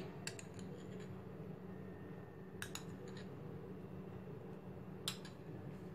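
Quiet steady room hum with three faint clicks about two and a half seconds apart, as oil is spooned into a glass bowl of flour.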